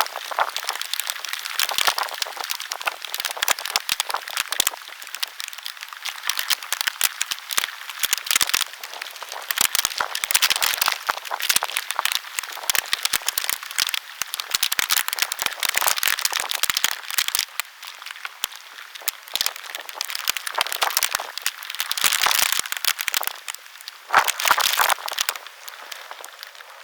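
Typhoon rain striking close to the microphone: a dense hiss full of constant irregular crackling clicks, rising and falling in gusts.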